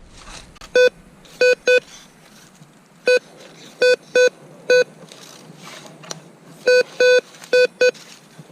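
Metal detector giving short, clear beeps, about eleven of them in irregular clusters of two to four, as it sounds off over buried metal.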